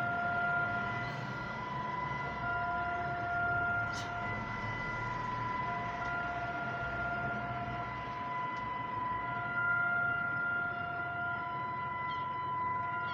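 Civil-defence warning sirens sounding in a national test of the emergency warning system. Several steady tones at different pitches overlap, some fading in and out, over a low rumble.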